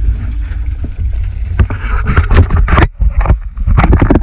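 Wind buffeting the microphone with a steady low rumble. Over it, from about halfway in, comes a run of sharp splashes and knocks as a snorkeller kicks away from the side of a small aluminium boat.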